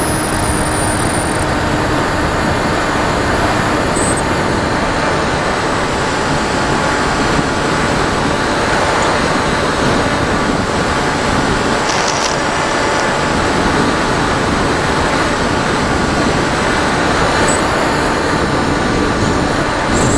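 Wind rushing over the onboard camera's microphone on an FPV model aircraft in flight. A faint, steady hum from its motor and propeller runs through the noise.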